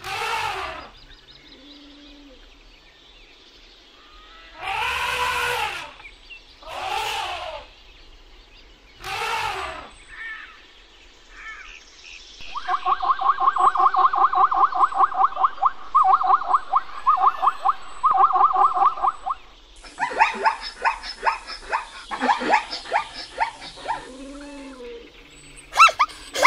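Elephants calling four times, each call about a second long and falling in pitch, then zebras calling in a long, fast run of barking yelps with a few short breaks. Near the end comes a different, irregular mix of animal calls.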